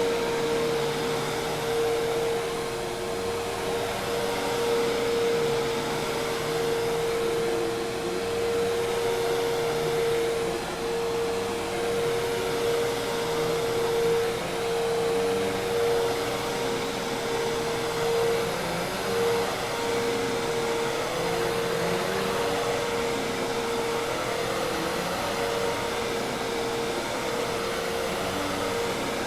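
Hoover Task Vac commercial vacuum cleaner running steadily: a constant motor whine over an even rush of air.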